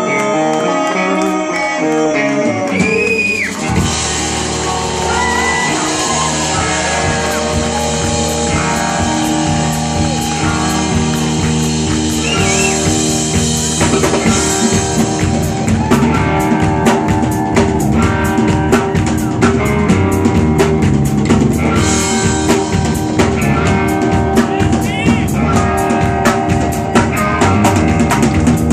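Live rock-blues band playing loudly: a resonator guitar with a drum kit, the full drums coming in about four seconds in.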